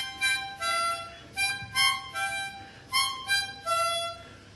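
Harmonica playing a tune of about nine short, separate notes.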